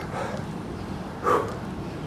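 A man breathing hard through push-ups: two short, forceful exhales about a second apart, the second one louder.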